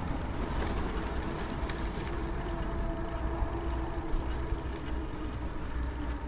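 Touring bicycle rolling over stone paving and concrete: a steady rumble of tyres on the hard surface, with a faint steady hum.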